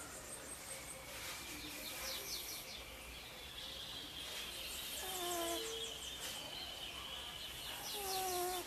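A sleeping cat snoring, two short pitched snores about three seconds apart in the second half, over birds chirping and twittering in the background.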